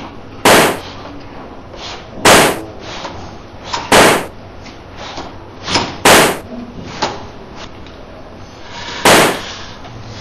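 Gunshots: five single loud bangs about two to three seconds apart, with fainter clicks between them.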